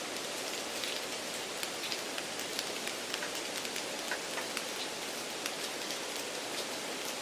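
Steady rain-like noise: an even hiss with many faint scattered drop ticks. It is background noise mixed into the listening-test recording to mimic poor exam-room conditions.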